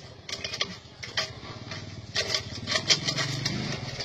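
Irregular taps and knocks on a wooden tabletop. A small engine starts running steadily about three seconds in.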